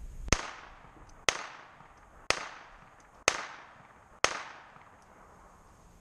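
Five shots from a .22 semi-automatic pistol, the GSG Firefly, fired at an even pace of about one a second, each sharp crack trailing off in a short echo.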